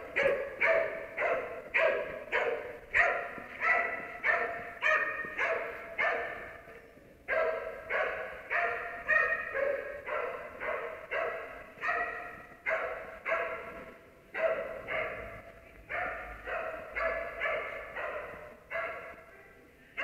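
A search-and-rescue dog barking over and over, about two barks a second, with short breaks twice. Each bark echoes in the large empty hall.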